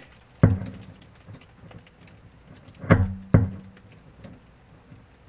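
Car subwoofers popping as a 9-volt battery is touched to and taken off their speaker leads: a sharp thump with a short low ring about half a second in, then two more about half a second apart near three seconds in. Each pop is the DC jolting the cones into the box.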